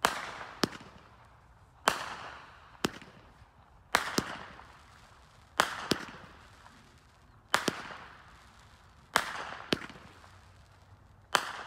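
Canadian Pride 25-shot fireworks cake (Victory Fireworks / Powerhouse Fireworks) firing: about a dozen sharp reports, roughly one a second, as the shells lift and break into strobing peonies. Several reports are followed by a hiss that fades over about a second.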